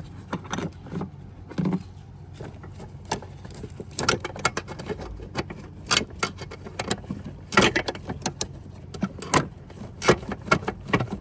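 Irregular metallic clicks and clinks of a hand wrench working on the nuts of a brake master cylinder, with several sharper knocks spaced through the few seconds.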